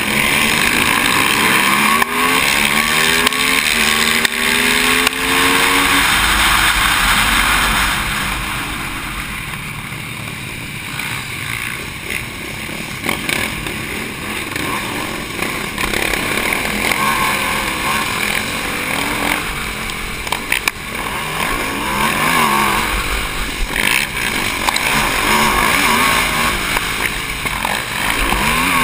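Onboard sound of an Aprilia SXV supermoto's V-twin engine at race pace: it climbs in pitch through the gears in the first few seconds, drops back as the bike slows for a tight corner, then picks up and revs hard again.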